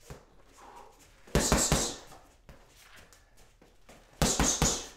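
Boxing gloves punching a heavy bag: two quick three-punch 1-2-1 combinations, the first about a second and a half in and the second near the end.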